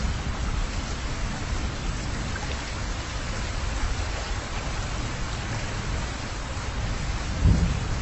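Steady wind and road noise of a car driving along a paved road, a low rumble under an even hiss, with a louder low bump near the end.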